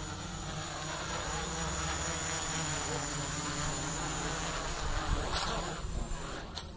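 Hexacopter drone's electric motors and propellers buzzing as it hovers low, the pitch wavering up and down with throttle. It is loudest as it passes close by about five seconds in, and the buzz drops away sharply near the end.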